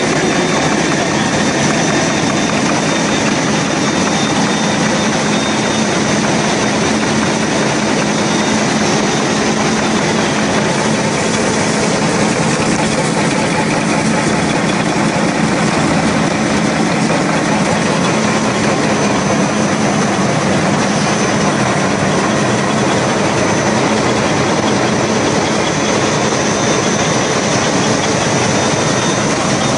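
Automatic wet-wipe folding and packing machine running steadily: a loud, even mechanical noise with a low hum and a few faint, high, steady whines.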